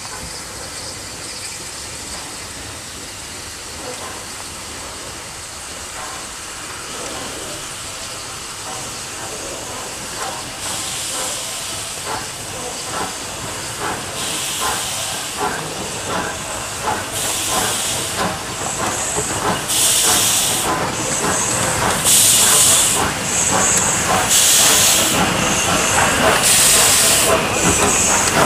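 USATC S160 2-8-0 steam locomotive moving off slowly. Steam hisses steadily at first, then from about ten seconds in comes a slow, regular beat of steam bursts, about one every two and a half seconds, growing louder as the engine comes closer.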